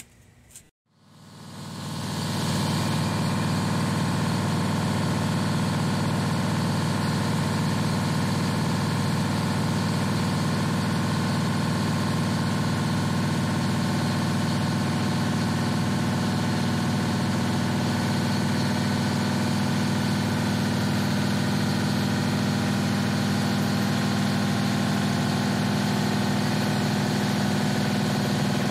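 Detroit Diesel 6-71 two-stroke diesel engine of a 1948 GMC Silversides bus idling steadily. It fades in over the first couple of seconds.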